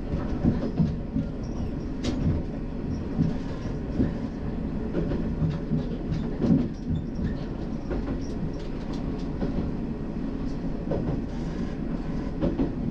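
A Nishikigawa Railway diesel railcar running, heard from on board: a steady low running noise with irregular clacks of the wheels over the rail joints.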